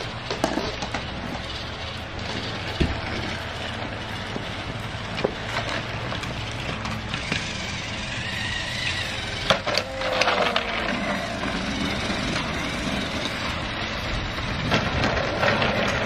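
Battery-powered toy train running on plastic track, its small motor and wheels making a steady rattling whir with scattered sharp clicks.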